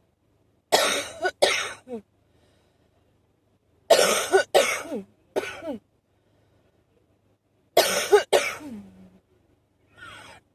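A person's short, wheezy allergic cough, coming in three fits of two or three coughs each, about three seconds apart. The last fit trails off in a brief falling tone.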